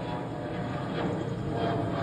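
Aircraft engines running: a steady rushing noise with faint, steady whining tones over it.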